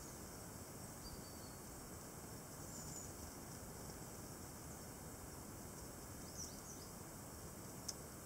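A few faint, short, high, thin calls of tits over a steady outdoor hiss, and a sharp click near the end.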